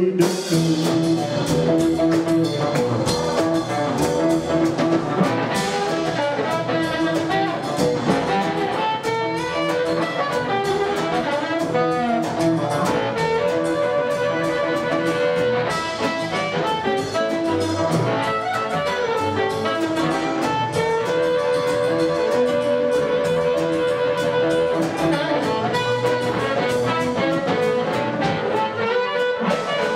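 Live blues band playing: a blues harmonica solo with long held notes over electric guitar, double bass and drums.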